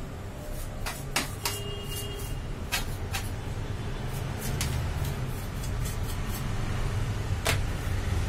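Scattered sharp clicks and knocks of plastic and metal parts being handled inside an opened Xerox WorkCentre photocopier, over a steady low hum.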